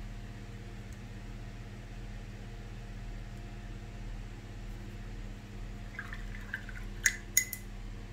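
Painting gear being handled: a few small taps about six seconds in, then two sharp clinks near the end, the second with a brief ring, over a steady low electrical hum.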